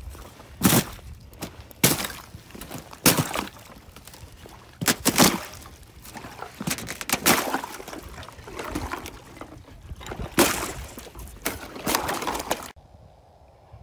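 Footsteps on thin ice over shallow puddles, with the ice cracking and crunching and water sloshing underfoot, about one step a second. The steps stop abruptly near the end, leaving only a faint steady background.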